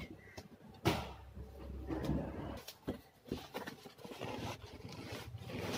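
Rustling and handling noise as a bucket-seat cover is pulled and pressed down over the seat foam by hand, with a sharp knock about a second in.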